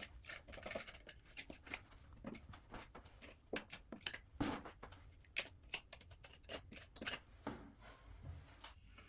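A plastering tool scraping and tapping as it presses bonding compound into a wall chase behind a conduit, in short irregular strokes.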